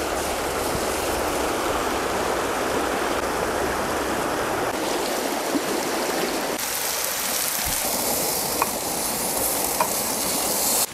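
Steady rushing water of a fast-flowing shallow river over stones, mixed with wind.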